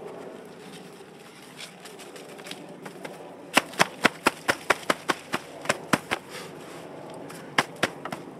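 Gloved hands patting down potting soil around a plant in a plastic pot: a quick run of sharp pats, about five a second, starting a little before the middle and lasting two to three seconds, then two or three more near the end.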